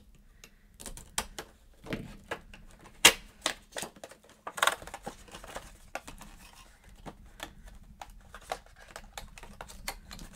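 A small cardboard box of notepads and its plastic wrapping being opened by hand: a run of irregular clicks, taps and crackles, with a sharp louder click about three seconds in and another near five seconds.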